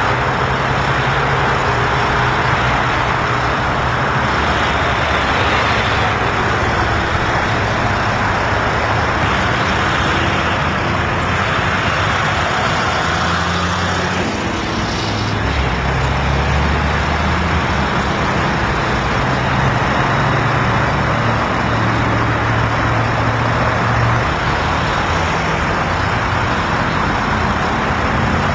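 Steady freeway traffic noise: a constant rush of tyres and passing vehicles with the low hum of engines, one deeper engine drone coming in about halfway through.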